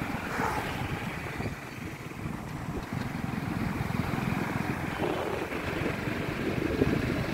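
Small motorcycle engine running while riding along a road, with wind rushing over the microphone.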